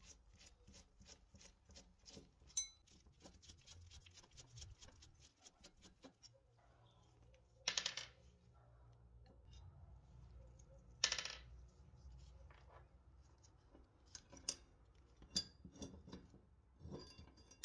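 A screwdriver working screws out of the cast-iron base of an antique scale. There is a quick, regular clicking, about four a second, for the first several seconds. Two sharp metallic clinks come partway through, then a few scattered clicks.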